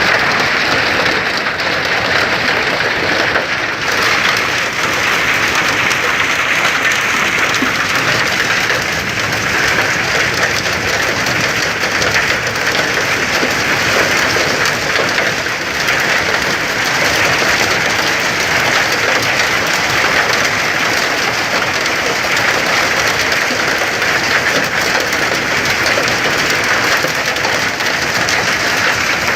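Heavy rain pouring down in a steady, dense patter.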